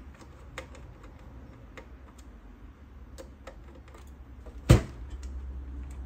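Scattered light clicks and taps of a screwdriver and hands on the metal and plastic parts inside a small desktop computer, loosening the NVMe SSD. One sharper knock comes about three-quarters of the way through.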